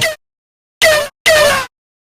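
The 'GET OUT' meme sound effect, a harsh shouted voice, played as short chopped samples: a clipped bit at the start, then two shouts about a second in, each falling in pitch, with dead silence between them.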